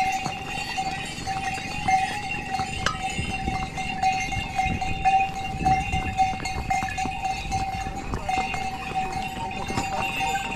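A bell on the pony's harness ringing steadily as it walks, with its hooves knocking on the stone-paved path.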